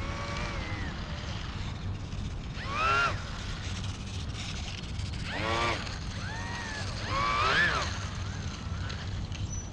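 A bird calling about five times in short, clear calls that rise and fall in pitch, the loudest about three seconds in and near the end, over a steady low rumble of wind and distant traffic.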